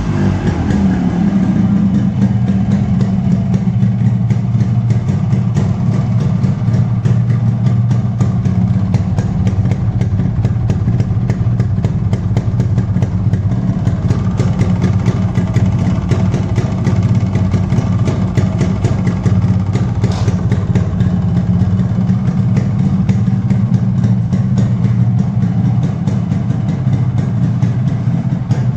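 Yamaha RX100's single-cylinder two-stroke engine idling steadily, running again after two years standing.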